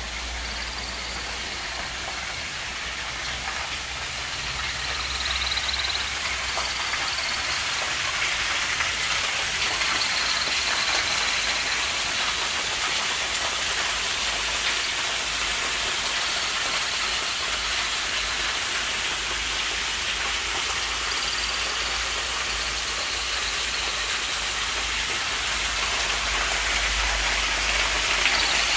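Waterfall: a steady rush of falling water, swelling slightly a few seconds in.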